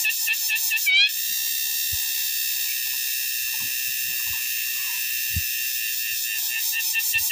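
Cicadas calling: a steady, high-pitched buzzing drone. At the start a faster pulsing call ends in two rising sweeps about a second apart, and the pulsing returns near the end.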